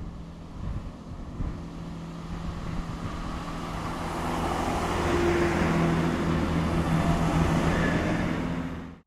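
Class 166 Turbo diesel multiple unit passing close by: the steady drone of its diesel engines over the rumble of the train, growing louder as the coaches go past, then cutting off suddenly near the end.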